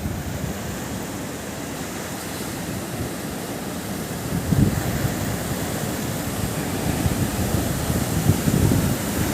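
Sea surf washing steadily onto the beach, swelling in low rumbles about halfway and again near the end.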